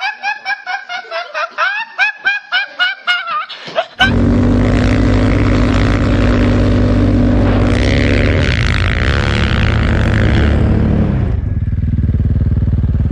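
A young man laughing uncontrollably in quick, high, gasping bursts. About four seconds in it cuts abruptly to a snowmobile engine running steadily at high revs, with a rushing noise that swells for a few seconds in the middle as the sled churns through deep powder snow.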